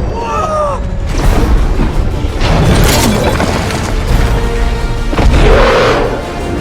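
Monster-battle film soundtrack: dramatic score over heavy booms and crashing, shattering destruction effects. The crashes swell about a second in, again around the middle, and once more near the end.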